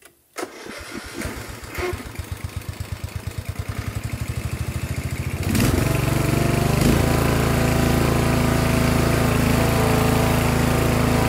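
A Snapper riding mower's 17.5-horsepower overhead-valve Briggs & Stratton engine being started. After a click, the starter cranks it with a quickening beat for about five seconds. The engine then catches and settles into a steady run.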